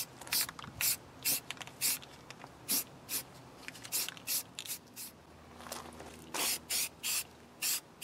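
Aerosol spray-paint can hissing in short bursts, roughly two a second, as paint is sprayed on in quick passes, with a break of about a second and a half past the middle.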